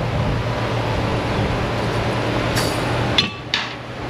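Steady machine noise: a low hum under a broad rushing sound, with three short, sharp metallic clinks about two and a half to three and a half seconds in.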